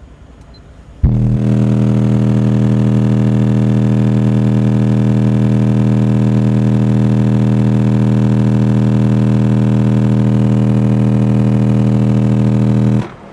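Car subwoofers driven hard by a bridged Crescendo Concerto C1600.2 amplifier, playing one steady low test tone for a clamp-meter power measurement. The tone starts suddenly about a second in, holds at one pitch with many overtones, and cuts off just before the end.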